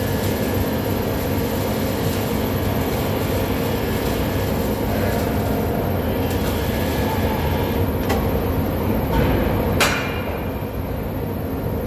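Steady rumbling machinery noise in a steel fabrication shop, with a faint hum over it. A light click comes about eight seconds in and a sharp clack just before ten seconds.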